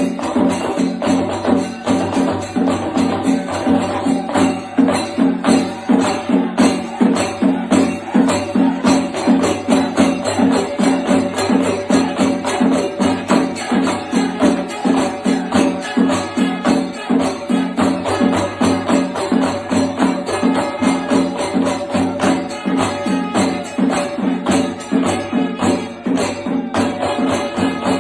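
Pancharimelam played on mizhavu, the large copper pot drums of Kerala, beating a dense, steady rhythm, with the constant metallic clash of ilathalam hand cymbals.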